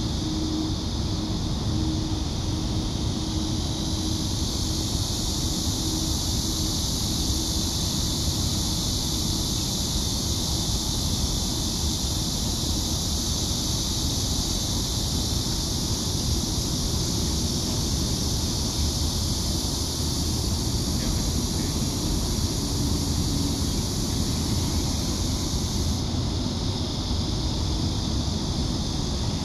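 Wind rumbling steadily on the microphone, over a constant high hiss, with a faint thin hum in the first few seconds and again briefly later on.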